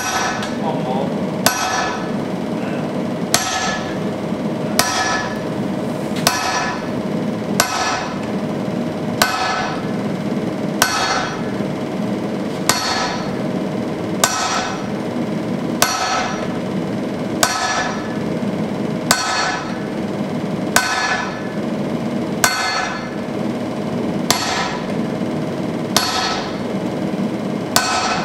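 Sledgehammer blows on hot steel over an anvil, hand-and-striker forging of an axe head: one hard blow about every one and a half seconds, each with a short metallic ring. A steady low rushing noise runs underneath.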